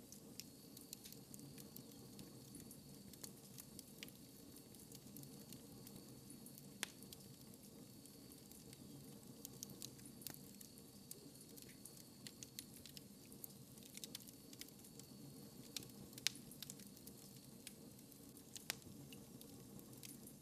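A wood fire burning in a fireplace: quiet crackling with irregular sharp pops over a faint low rumble. The loudest pop comes about 16 seconds in.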